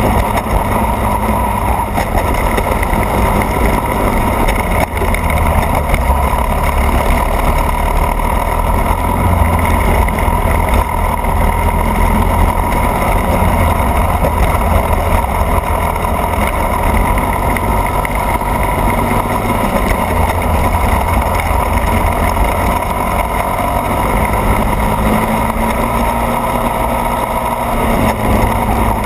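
Racing kart engine running at race pace, heard onboard, its revs rising and falling through the corners, over a heavy low rumble.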